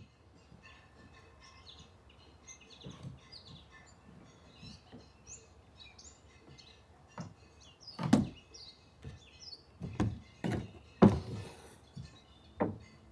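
Songbirds chirping, with a run of loud hollow knocks and thunks as a kayak is set down onto a Jeep's roof rack, the heaviest about eight, ten and eleven seconds in.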